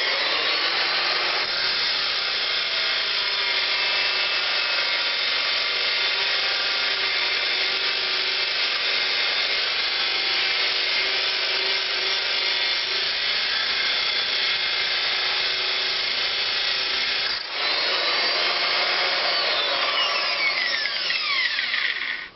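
Home-built 12-volt battery-powered angle grinder with a rewound motor of about 800 W, running steadily. It drops out briefly about 17 seconds in and then runs again. Near the end its whine falls in pitch before it stops.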